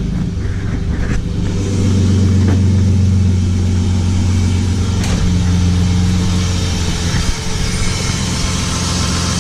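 BMW M52B28 2.8-litre straight-six running steadily with its accessory belt removed, with no knock. The knocking noise therefore lies in the belt-driven parts: the power steering pump, alternator or water pump. It picks up slightly about two seconds in, then settles.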